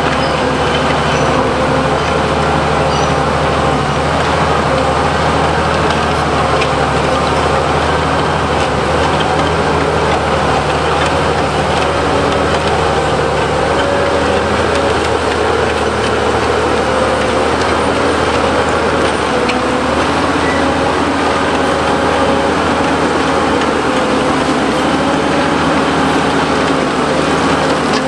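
Liebherr PR 776 crawler bulldozer's diesel engine running steadily under load as it pushes rock and fill, with the rumble of the machine working.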